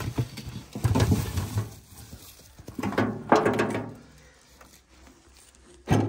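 Baked potatoes, soil and ash tipped out of a metal tin into a metal basin, with thuds of potatoes landing and the tin scraping and knocking against the basin rim. This comes in three bursts: a longer one at the start, another about three seconds in, and a short sharp knock near the end.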